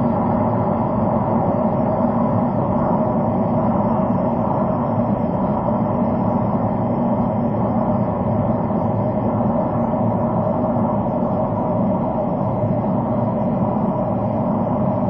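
Steady tyre and engine noise inside a car cruising at expressway speed, heard through a dashcam microphone: an even, low-pitched drone that does not change.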